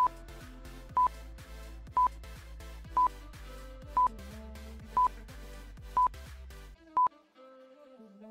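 Quiz countdown timer beeping once a second, eight short single-tone beeps, over light background music with a steady bass. The music drops out just before the last beep, about seven seconds in, leaving a faint lingering note.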